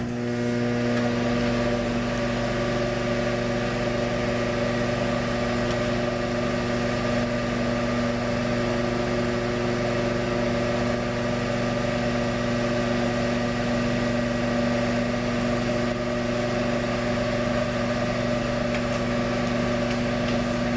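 Microwave oven running with a steady electrical hum, its transformer and fan starting up at the beginning and holding an even pitch throughout.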